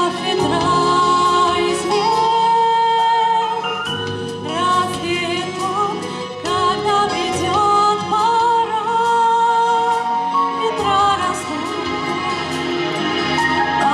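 Music: a song with a sung melody in long, wavering notes over instrumental backing.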